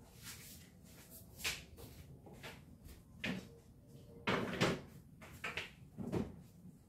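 Wooden storage boxes being handled: a string of separate knocks and clunks, the loudest two close together a little over four seconds in.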